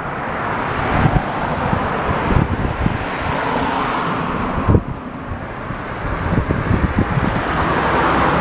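Honda Cross Cub 110's air-cooled single-cylinder four-stroke engine idling steadily, with wind buffeting the microphone in irregular thumps.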